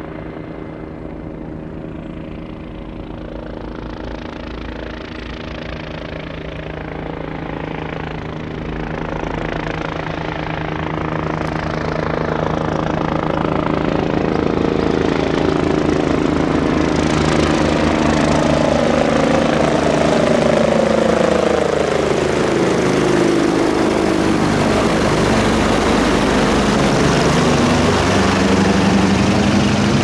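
MBB-Kawasaki BK117-A3 twin-turbine helicopter flying in and passing overhead: a steady rotor beat and turbine sound that grows steadily louder. About two-thirds of the way through, a whine slides down in pitch as it goes by.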